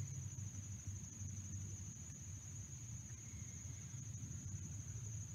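A steady, high-pitched chorus of crickets trilling without a break, over a faint low rumble.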